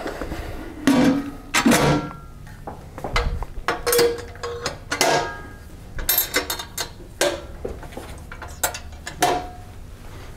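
Stainless steel pneumatic line magnet being closed up, its door shut and its DESTACO toggle clamps latched one after another: a series of irregular metallic clicks and clanks, a few ringing briefly.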